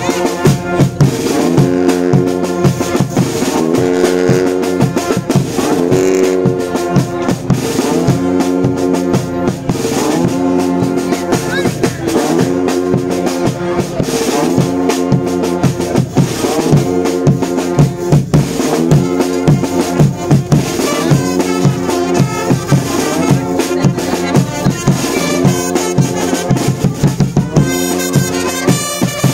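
A live brass band playing a lively tune on trombones, trumpets, saxophones and clarinet, over a steady beat of drums.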